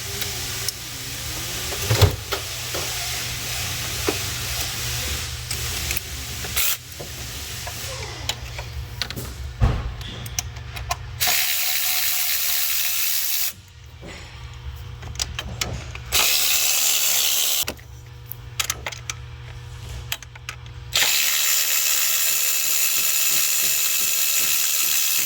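Tools clicking and knocking on the engine during fuel injector removal, then three long steady bursts of hissing, mechanical noise, the last about four seconds long.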